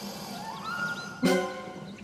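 Cartoon alligator snarling: a short, loud snarl about a second in, over light background music.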